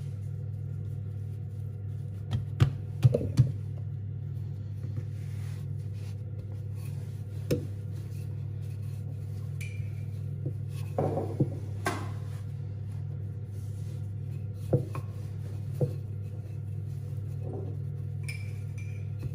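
Scone dough being patted by hand and rolled with a wooden rolling pin on a wooden board: scattered soft knocks and thuds, a few close together about two to three seconds in, over a steady low hum.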